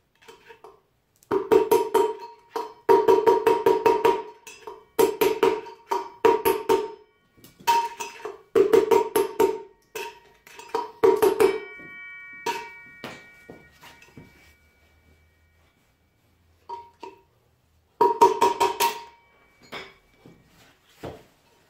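A long steel rod jabbed rapidly down through a scooter wheel hub, clattering against the wheel bearing inside in bursts of quick ringing metal taps, to knock the bearing out. Just before the halfway point a strike leaves a longer metallic ring, then the taps stop; one more burst of taps comes near the end.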